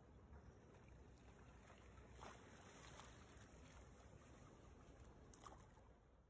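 Near silence: a faint low rumble and hiss with a few faint ticks, fading out at the end.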